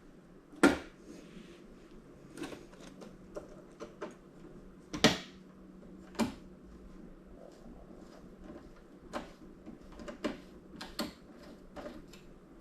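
Scattered clicks and knocks of hand tools and plastic and metal parts being handled while screws are taken out of a small flat-screen TV, the two loudest about a second in and about five seconds in, over a faint steady hum.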